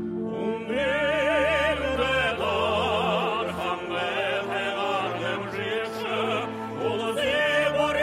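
Music: a classical, operatic-style voice singing with a wide vibrato over orchestral accompaniment.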